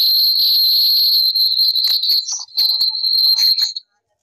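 Loud, steady high-pitched whistling tone with scattered clicks, cutting off suddenly near the end.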